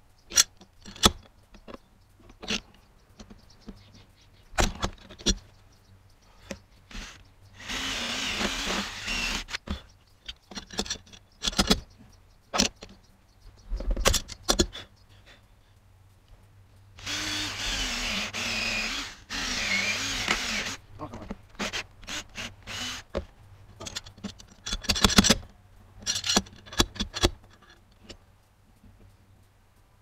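Cordless drill boring into a cedar cant to free an embedded nail that will not come out. It runs in short spells, the two longest about eight seconds in and from about seventeen to twenty-one seconds, with sharp clicks and taps of hand tools on the wood in between.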